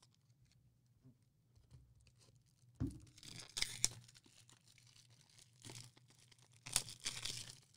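Foil trading-card pack being torn open and its wrapper crinkled, in a few short bursts after about three seconds of near quiet.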